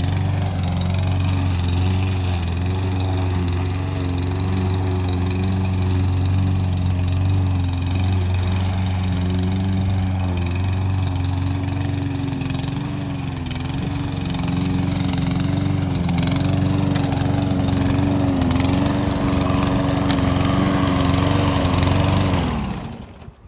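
Saber Edge lawnmower's Briggs & Stratton OHV single-cylinder engine running at a steady speed, then winding down and stopping near the end.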